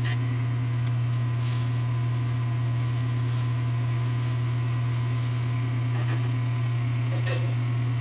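Belt-driven wood lathe running, its electric motor giving a loud, steady low hum.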